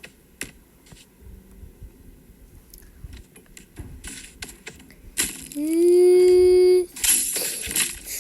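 Coins clicking and clattering out of a toy vending machine. Partway through, a loud held high tone rises briefly, then holds steady for about a second and a half, and the clatter resumes after it.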